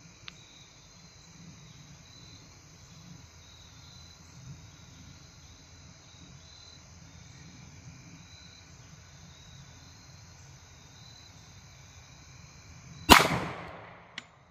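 A single loud shot from a 10mm Colt Delta Elite 1911 pistol firing PMC Bronze 170-grain hollow-point, a hot load, about thirteen seconds in, with a short ringing decay. Before it, steady high insect chirring.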